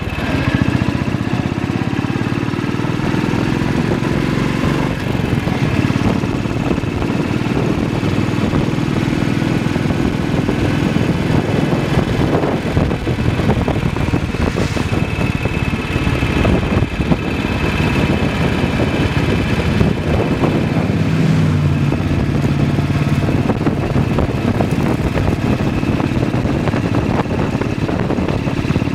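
BSA WM20 motorcycle's single-cylinder side-valve engine running on the move, over a steady rush of wind and tyre noise on the wet road.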